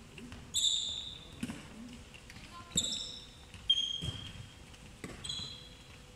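Sports shoes squeak sharply on a sports-hall floor about four times as players run and cut. A handball bounces and is caught with a few dull knocks in between, echoing in the large hall.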